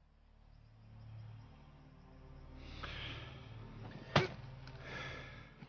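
Film sound effects over a low steady drone: a rising whoosh about three seconds in, one sharp crack a little after four seconds, and a second whoosh near the end.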